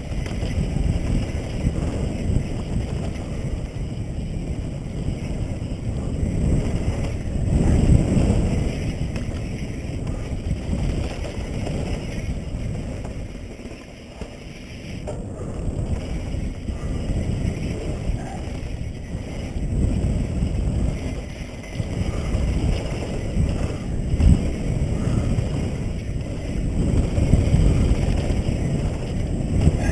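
Wind buffeting a GoPro's microphone and knobby tyres rumbling over packed dirt as a mountain bike descends a flow trail. The rumble eases for a moment about halfway through, then builds again.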